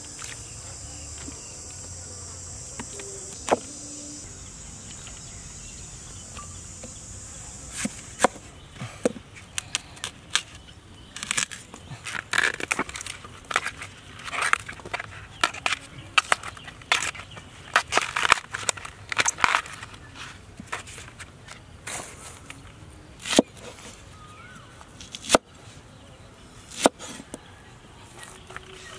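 Insects buzzing steadily for the first few seconds, then crisp crackling and rustling as the husk leaves of a fresh bamboo shoot are peeled back by hand, with a few sharp single knife chops on a wooden cutting board near the end.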